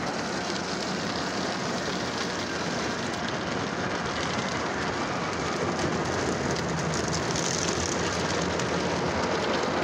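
Automatic car wash heard from inside the car: water spray and cloth brushes beating steadily on the windshield and body, a little louder in the second half.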